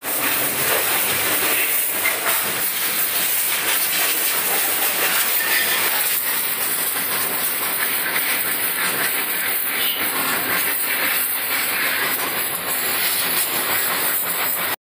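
Pressure washer spraying a jet of water onto a stripped motorcycle frame and engine: a loud, steady hiss that cuts off suddenly near the end.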